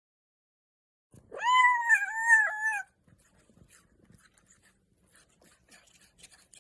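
A cat's drawn-out meow starting about a second in: it rises at the onset, then wavers for about a second and a half. Faint scattered taps follow.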